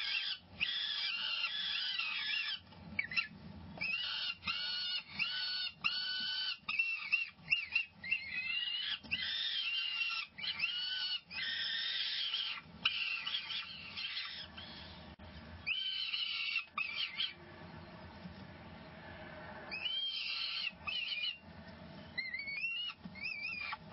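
Peregrine falcon chicks giving shrill food-begging calls in quick repeated series, each call rising and falling in pitch. The calls thin out and stop for a few seconds past the middle, then start again near the end.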